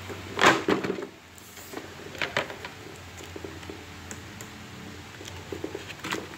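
Cardboard toy box being handled and turned over: a loud knock and scrape about half a second in, then a few lighter knocks and scuffs against the cardboard.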